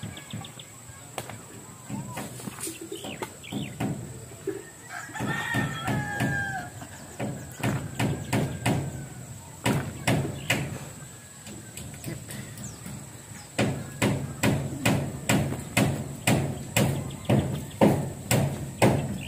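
A rooster crows once, about five seconds in. Scattered knocks are followed, from about two-thirds of the way through, by steady, loud strokes of a hand tool striking the ground, about one and a half a second, as fill is dug.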